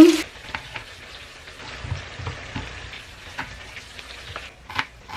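Faint kitchen cooking sounds: light scattered crackles and clicks, with one sharper click near the end.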